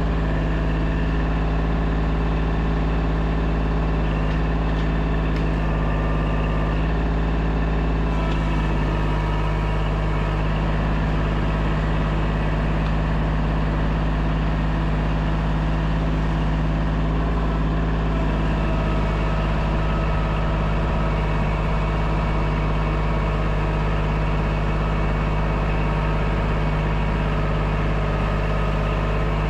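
Kubota compact tractor's diesel engine running steadily at a constant speed.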